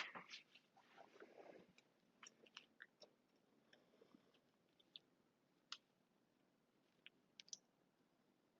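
Faint, scattered small clicks of pliers and a circlip being worked onto a motorcycle foot-peg pivot pin, irregular and a few seconds apart, with the clearest ones near the middle and toward the end.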